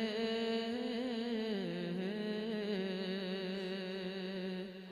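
A man's singing voice holding one long, ornamented note of a naat without words, wavering in pitch, dropping to a lower note about a second and a half in, and fading out near the end.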